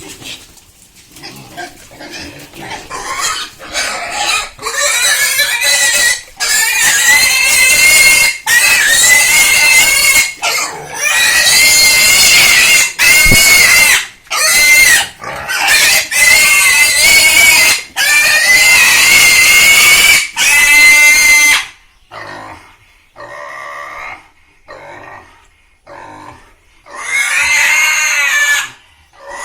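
A pig squealing loudly in long, high-pitched screams, one after another, for nearly twenty seconds, then a few shorter, quieter squeals and one more long squeal near the end.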